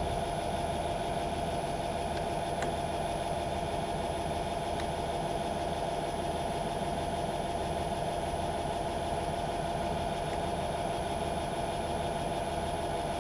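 Myford metal lathe running steadily, a constant machine hum with a steady whine.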